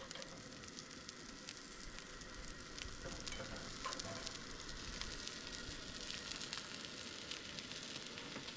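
Faint, steady crackling sizzle with scattered small pops.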